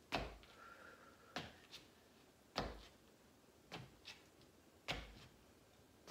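Sneakered foot tapping down on a wooden floor during leg kickbacks. There are five soft thumps a little over a second apart, with fainter taps between them.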